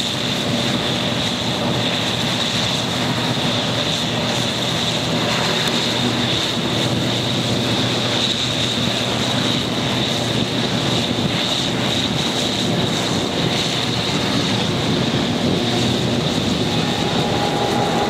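Slovenian class 664 diesel locomotive working hard, its engine thrash heard loud and steady from the train it is hauling, with a steady high whine over the engine noise.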